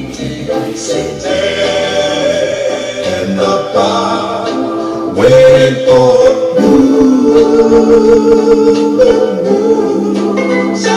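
Music with singing voices holding long notes, louder from about halfway through.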